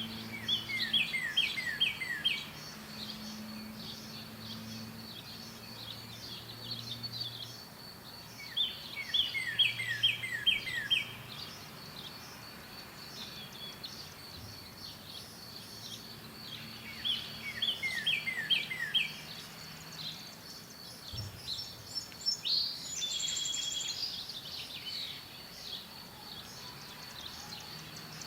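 Songbirds singing: one bird repeats a phrase of five or six quick, down-slurred notes three times, and another calls near the end. A steady, thin, high-pitched drone runs underneath.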